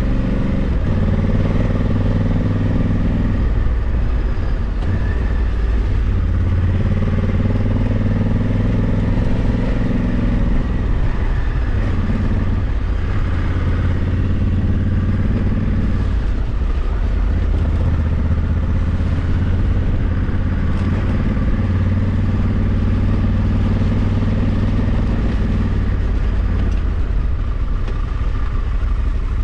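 Honda Africa Twin 1100's parallel-twin engine running while riding, its note swelling and easing every few seconds as the throttle opens and closes.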